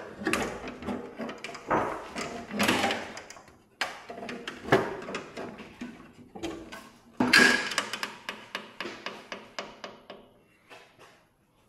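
Irregular knocks and clicks of tools and metal parts being handled during vehicle dismantling, with sudden louder clatters about four and seven seconds in, dying away near the end.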